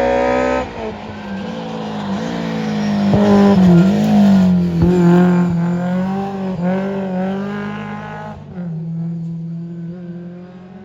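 Historic rally car engine pulling hard, its pitch rising, then dropping sharply as the driver lifts off about half a second in. It then runs through the corners with the engine note wavering up and down, loudest around four seconds in, and fades away after about eight seconds.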